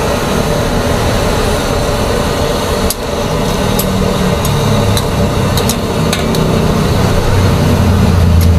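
Seafood in sauce bubbling in a wok over a steady, loud roar, with several sharp metal clinks of the spatula against the wok from about three seconds in and once more near the end.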